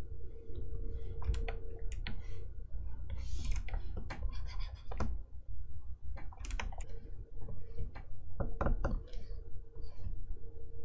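A plastic stylus nib tapping and scratching on the screen of an XP-Pen Artist 15.6 Pro pen display during sketching. Irregular taps and short strokes, with one longer scratchy stroke about three seconds in, over a faint steady hum.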